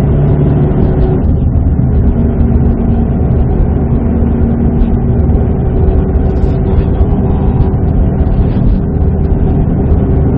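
Subaru WRX STI's EJ20 turbocharged flat-four engine and road noise heard from inside the cabin while driving, a steady loud drone. The engine note changes a little over a second in, as the gear lever is worked.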